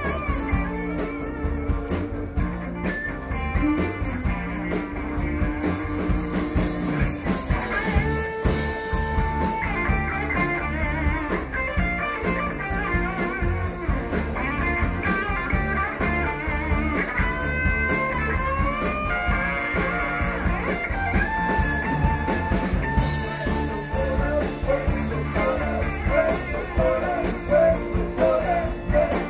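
A live rock band playing a bluesy number, with electric lead guitar lines bending over bass and drums and some singing.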